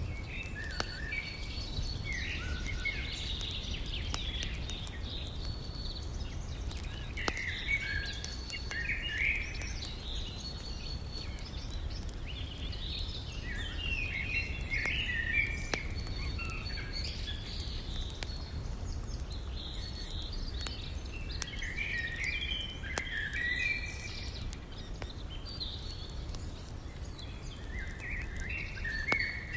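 Campfire burning with occasional sharp crackles and pops, while songbirds sing repeated warbling phrases throughout. A steady low rumble runs underneath.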